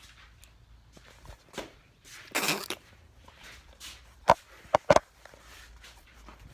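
Handling noise: a short rustling scrape a couple of seconds in, then a few sharp clicks and knocks near the middle.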